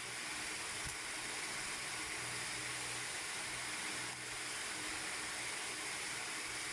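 Steady hiss with a faint low hum: the recording's background noise, with nothing else happening.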